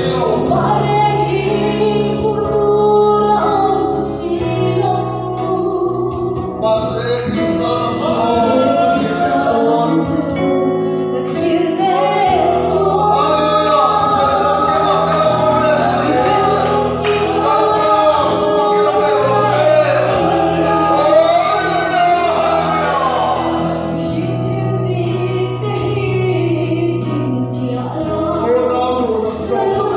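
Gospel hymn sung by a woman into a microphone through a PA, over accompaniment holding low notes that change every few seconds.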